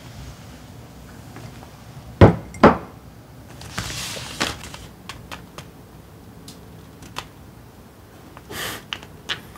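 Two sharp knocks of a ceramic mug being set down on a wooden window ledge, then light clicks and brief rustles of a plastic blister pack of batteries being picked up and handled.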